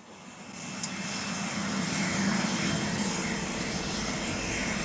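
Aircraft engine noise on an airport ramp: a steady drone with a low hum that swells in over the first second as the door opens to the outside, with a single click about a second in.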